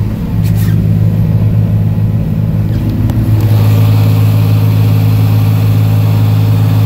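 Boat engine running steadily under way, a loud low drone that grows a little louder about three seconds in.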